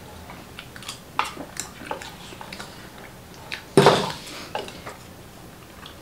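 Spoons clinking against ceramic bowls and a glass dish, with eating sounds, in scattered light clicks and one louder, longer noise about four seconds in.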